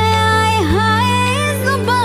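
Background Hindi film-style song: a melody of long notes that bend and glide in pitch over a steady low accompaniment.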